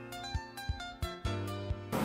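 Background music: a melody of changing pitched notes over a steady beat.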